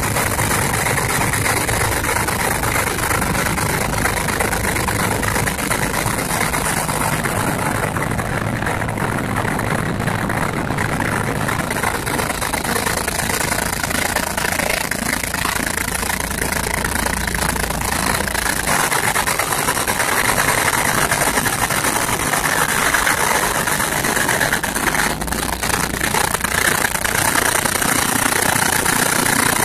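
Pilot boat's engine running steadily while it holds alongside a ship, with water rushing between the hulls.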